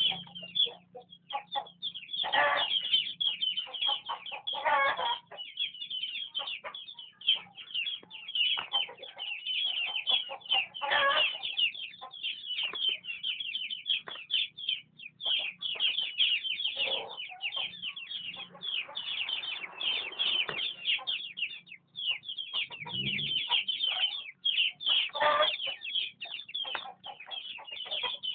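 Chickens calling at once: a dense, unbroken stream of high cheeping with louder clucking squawks every few seconds.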